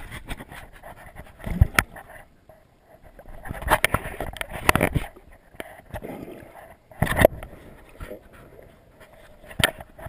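Muffled, uneven swirl of river water picked up by a submerged camera, broken by sharp knocks and clatters a handful of times.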